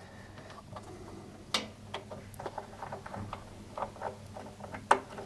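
Electrical connectors being pushed back onto the terminals of a washing machine heater element: a scatter of small clicks and light taps, two of them sharper, about a second and a half in and near the end.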